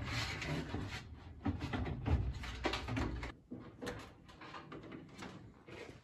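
Gas furnace's sheet-metal blower housing being slid and worked into its mounting rails: metal scraping with a run of knocks and clunks, growing sparser and quieter about halfway through.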